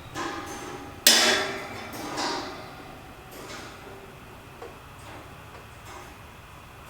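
Parts of a portable kerosene heater knocking together as it is assembled: one sharp, loud clank about a second in, then a lighter knock and a couple of small clicks.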